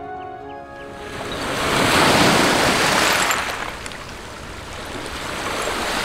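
Small waves breaking and washing up over a stony foreshore. The wash swells to a peak about two seconds in, dies away, and builds again near the end. Music fades out in the first second.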